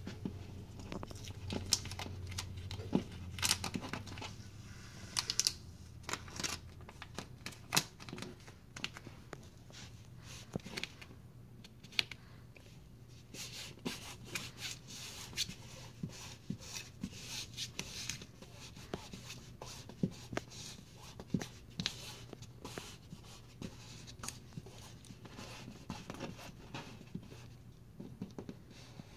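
Fabric wall decal being peeled back from the wall and pressed and rubbed flat again by hand: irregular crackling, crinkling and short peeling rips from the adhesive-backed fabric.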